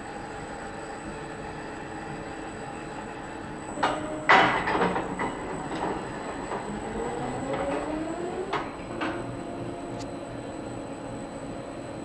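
Industrial robot arm's drives humming and whining as it moves a snow plough blade; about four seconds in the blade hits and scrapes along the steel floor with a loud clatter. Then a rising whine as the arm speeds up, and a few sharp knocks near the end.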